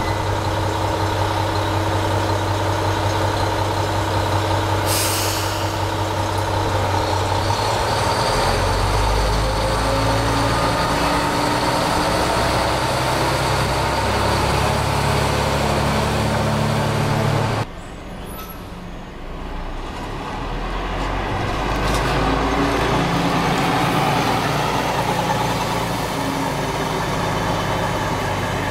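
Diesel railcar idling at the platform, a short hiss of air as the brakes release about five seconds in, then the engine revs up with rising tones as the railcar pulls away. The sound cuts off abruptly a little past halfway and gives way to a quieter vehicle engine hum that swells and fades.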